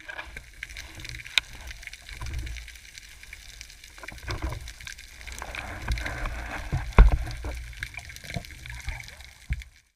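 Underwater sound picked up by a camera mounted on a speargun: a steady water hiss and low rumble, with scattered clicks and knocks, the sharpest about seven seconds in.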